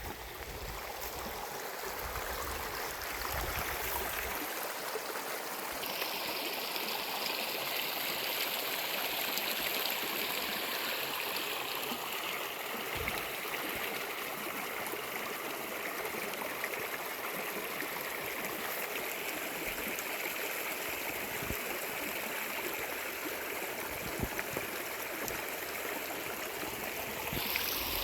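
Steady rush of a mountain river, growing louder over the first few seconds.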